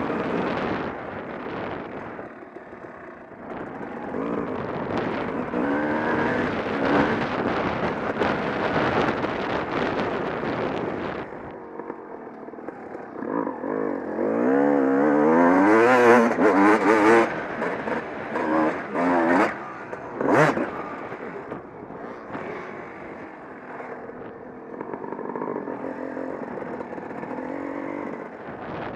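Off-road motorcycle engine being ridden hard over rough ground, its revs rising and falling with the throttle, loudest in a run of revving about halfway through. A few sharp knocks from the bike over bumps come near the middle.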